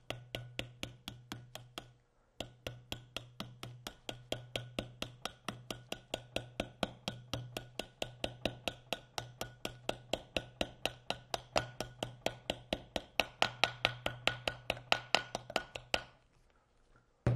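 Hammer tapping a new rubber motor mount onto the end shaft housing of a Bell & Gossett Series 100 pump motor, working it round until flush. Quick light taps, about five a second, with a short pause about two seconds in; they stop about a second before the end.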